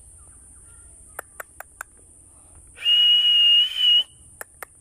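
Green parrot clicking several times sharply, then giving one loud whistle about a second long at a steady high pitch that lifts slightly at the end, followed by two more clicks.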